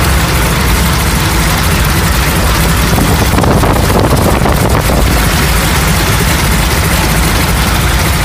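The Ford Trimotor's radial engines running steadily at low power as it rolls along the runway after landing, heard loudly from the cockpit. The tone changes briefly between about three and five seconds in.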